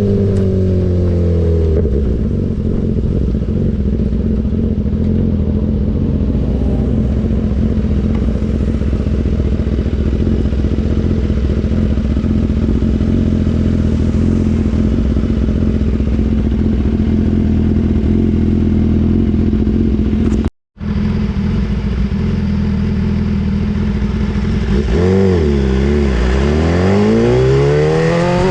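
BMW S1000RR inline-four engine breathing through an Austin Racing GP1R full-Inconel exhaust: the revs fall away in the first two seconds, then the engine holds a steady note for most of the stretch. The sound cuts out briefly about twenty seconds in; near the end the revs waver and then climb steadily.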